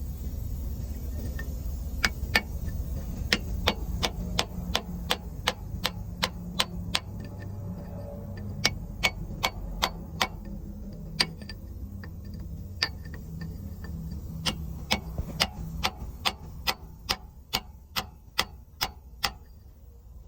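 A run of sharp clicks, two or three a second at uneven spacing, over a low steady hum; the clicks begin about two seconds in and stop shortly before the end.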